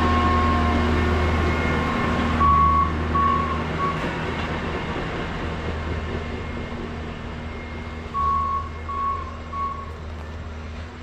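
Engines of rail maintenance-of-way track machines running as they travel past, fading away, while a warning beeper gives three quick beeps about two and a half seconds in and three more about eight seconds in.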